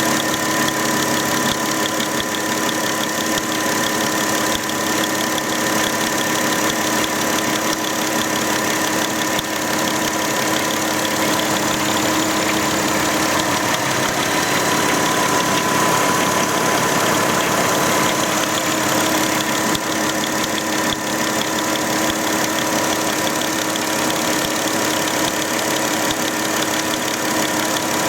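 Volkswagen Touareg engine idling steadily, with several steady whining tones over the running noise. The owner hears a strange noise while it runs that is gone with the accessory belt off, which points to a belt-driven accessory.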